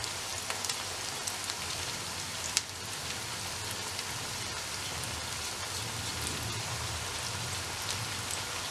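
Onions and freshly added chopped tomatoes frying in hot oil in a wok: a steady sizzle with scattered crackles and pops, and one sharper pop a little over two seconds in.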